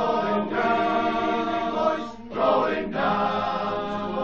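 Unaccompanied men's voice choir singing a sea shanty in harmony, holding long chords, with a short break about two seconds in before the next phrase.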